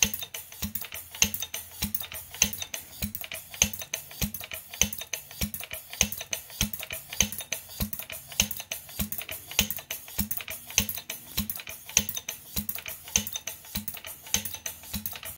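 1937 Briggs & Stratton model WM engine, converted to a steam engine and running on compressed air, ticking over steadily: an even rhythm of about one and a half low thumps a second from the air exhaust, with lighter valve clicks between.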